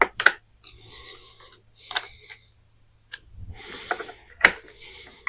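A car door latch assembly being worked by hand: a series of sharp clicks with softer rattling and rustling between them, a pair right at the start, then single clicks about every second or so.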